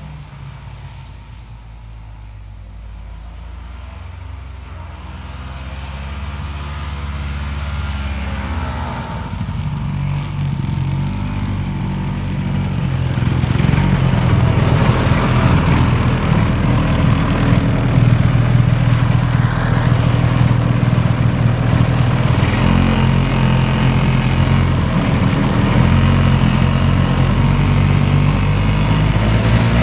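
1972 Ski-Doo Elan 250 snowmobile's two-stroke engine running. It is faint at first and grows steadily louder over about the first 14 seconds, then runs loud and steady with small shifts in pitch.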